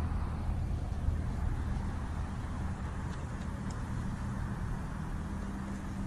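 A motor vehicle's engine running steadily, a low rumble with a hum that comes in about two seconds in, over road traffic noise.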